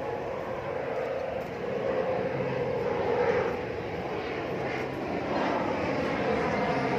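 Airplane engine noise: a continuous drone with a low steady hum underneath, slowly growing louder.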